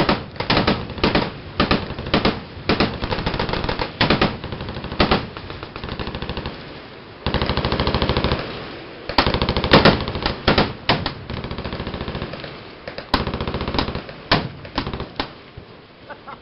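Automatic gunfire from several machine guns on a firing line: long stretches of very rapid fire overlapping with louder single and short-burst reports, thinning out near the end.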